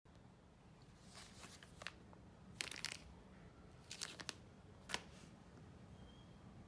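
Thin plastic crinkling in about four short bursts as a card in a clear plastic sleeve is handled.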